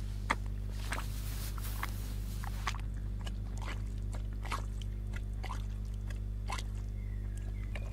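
Faint steady low hum with a scattering of small sharp clicks.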